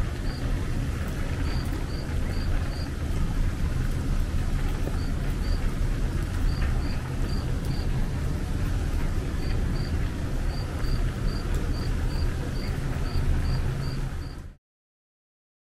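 Wind rumbling on the microphone on an open hilltop, with a high chirping in short runs of chirps, about three or four a second. The sound cuts off suddenly near the end.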